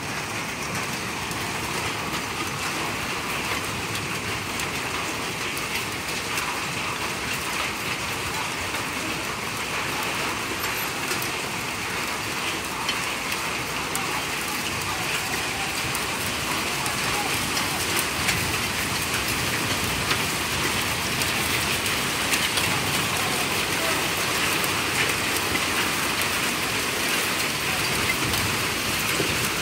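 Hailstorm: a steady hiss of heavy rain and hail, with scattered sharp ticks. It grows a little louder about halfway through.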